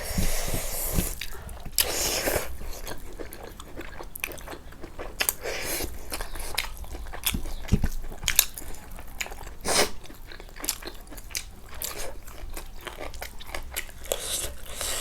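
Close-up chewing and crunching of fried pork and rice: a person eating, with many short crisp bites and the odd click of small bones.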